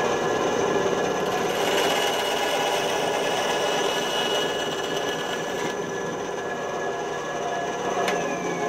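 Harbor Freight 9-inch benchtop band saw running and cutting through 1/4-inch MDF, the blade's rasp ending about six seconds in as the cut finishes. The saw hums on freely, then a click near the end, after which its pitch starts falling as it winds down.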